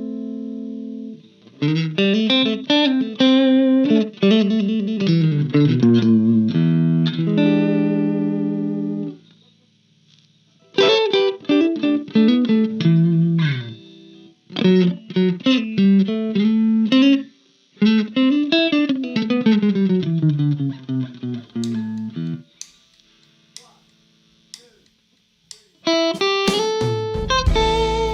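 Solo guitar playing: a held chord dies away, then quick runs of single notes with slides between them come in several phrases separated by short pauses. Near the end a fuller strummed chord with a deep low note comes in.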